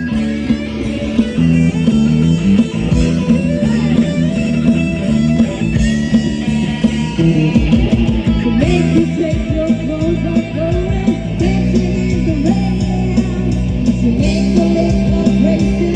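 Rock music played by a band: electric guitar over bass guitar, with bending, sliding guitar notes.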